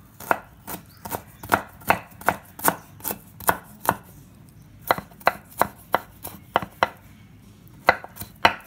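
Kitchen knife slicing ginger on a wooden chopping board, each cut ending in a sharp knock of the blade on the wood, about two or three a second, with a brief pause a little before the middle.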